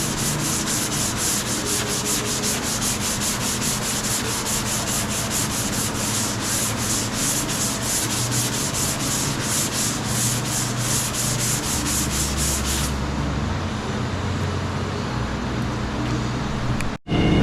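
Sanding body filler on a car quarter panel: a rhythmic rasp of about four to five strokes a second that becomes duller about two-thirds of the way through, then breaks off briefly near the end.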